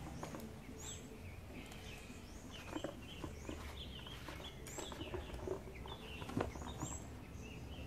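Several birds chirping and singing in short, quick notes over a steady low rumble. A few dull knocks come as a heavy wooden post is lifted and stood upright in its hole, the loudest about six seconds in.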